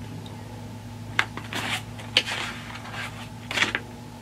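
Pages of a hardcover picture book being turned: a few short, sharp paper rustles and flaps over a couple of seconds, over a low steady hum.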